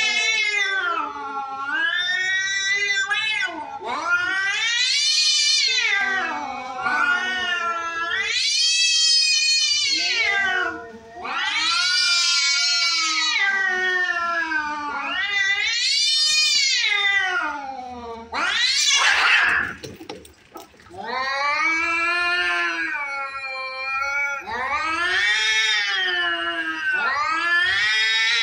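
Two cats caterwauling at each other in a standoff before a fight: long, wavering yowls that rise and fall, one after another with hardly a break. A short harsh hiss comes about two-thirds of the way through.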